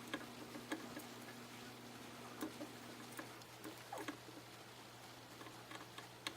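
Faint, scattered light clicks and taps of small tools being handled at a soldering bench, over a steady low electrical hum, part of which stops about three seconds in.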